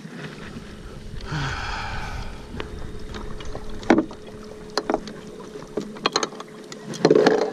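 Minn Kota tilt-tiller trolling motor and its aluminium bow mount being handled: a rush of noise lasting about a second, then a series of sharp clicks and knocks from the mount, loudest near the end.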